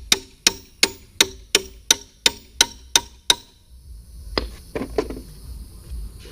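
Hammer striking metal on a fire-damaged car, about ten quick, even, ringing blows at roughly three a second that stop about three and a half seconds in, followed by a few lighter knocks.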